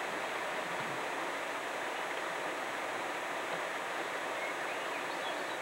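Steady, even hiss of quiet outdoor background noise with no distinct sounds in it.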